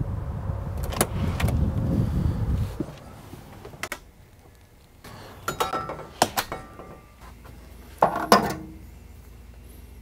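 A person entering and moving about a workshop: a low rumble for the first couple of seconds, then footsteps and a few sharp clacks and rattles as things are handled, over a faint steady hum.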